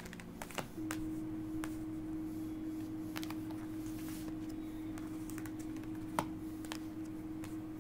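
Tarot cards being handled and shuffled by hand: scattered light clicks and taps of card against card. A steady low hum starts about a second in and runs underneath.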